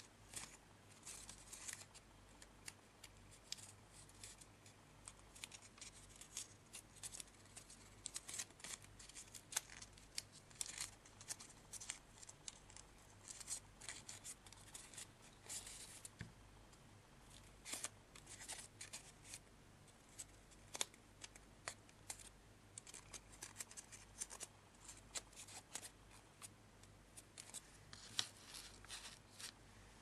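Folded origami paper crinkling and rustling in the fingers as it is creased and shaped, in faint, irregular short crackles.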